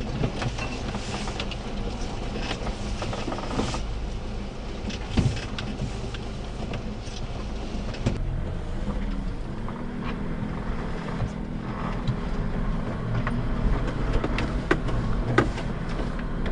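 1992 Daihatsu Hijet Climber mini-truck's 660cc three-cylinder carbureted engine running steadily at low speed, heard from inside the cab. Short knocks and rattles come through as the truck crawls over rough trail.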